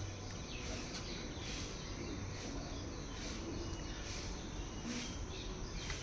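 Steady outdoor background noise with a few faint, short bird chirps here and there; no loud peacock call.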